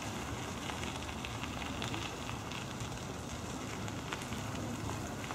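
Steady outdoor background hiss with a fine crackle throughout.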